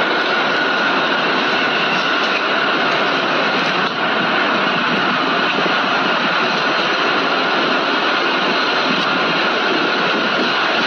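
Steady, loud hiss-like noise with a faint high tone running through it.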